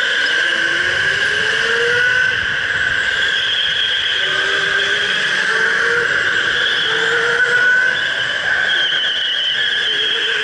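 Electric go-kart running at speed, its motor whining high and steady, with lower tones gliding up and down as the kart speeds up and slows through the corners, over a constant hiss.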